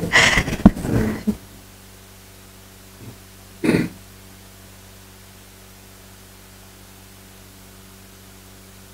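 Two people laughing for the first second or so, then a single short throat-clear about three and a half seconds in. Between and after, only a steady low electrical hum.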